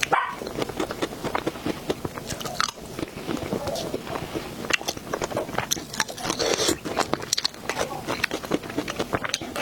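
Close-miked eating: a person biting and chewing dessert, with many quick wet mouth clicks and occasional crunches.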